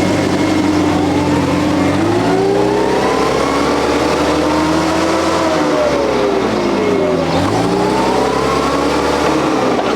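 Forklift engine running while the truck is driven, its pitch rising about two seconds in, dropping sharply about seven seconds in, then rising and falling again near the end.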